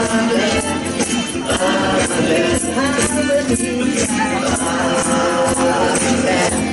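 Hebrew blessing song music with a melody over a steady, jingly percussion beat.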